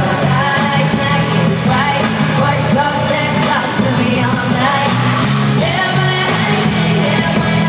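Live pop concert music at full volume through an arena sound system: a woman singing over a band with a steady bass beat, in the reverberant hall.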